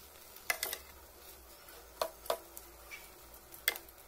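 Wooden spatula stirring cooked rice in a metal pan, knocking against the pan in a few short, irregular ticks.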